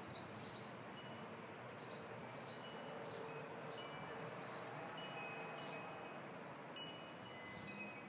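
Faint, scattered high chiming tones, a few short notes now and then, over a steady low hiss.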